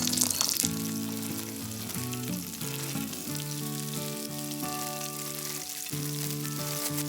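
Food frying with a steady sizzle and crackle, loudest in the first second, over background music of sustained notes.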